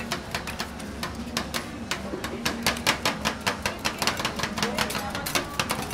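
Metal spatulas striking and scraping on the frozen steel pan of a rolled ice cream stall, a quick clatter of about five clicks a second that gets louder about halfway through.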